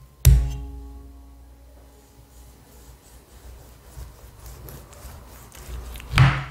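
Chef's knife cutting through a firm agar jelly log and striking the bamboo cutting board: a sharp thunk just after the start and another near the end, with faint rubbing of the blade through the jelly in between.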